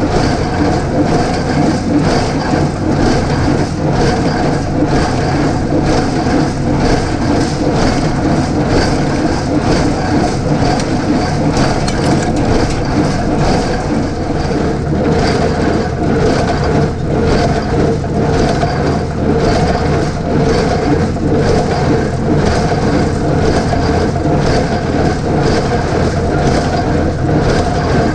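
Allis-Chalmers 5050 diesel tractor running steadily while driving a New Holland 310 square baler, whose plunger knocks in an even rhythm of about one and a half strokes a second.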